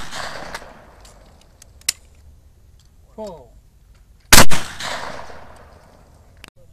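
A single shotgun blast at a trap target about four seconds in, its echo dying away over a second or so. About a second before it comes a short shouted call, and the opening second holds the fading echo of an earlier shot.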